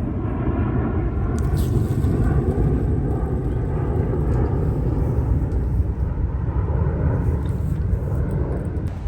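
An engine running steadily at constant speed, with a heavy low rumble and a steady whine above it.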